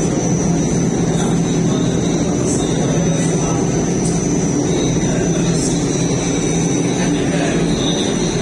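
32 kg industrial blanket washing machine in its spin stage, the drum spinning at speed with a steady mechanical hum and a thin high whine. The level holds even, the sign of a machine that spins stable and balanced.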